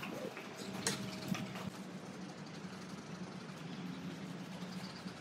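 Faint wet squelching and rubbing of a soapy car-wash sponge being worked through a dog's lathered coat, with a steady low hum underneath.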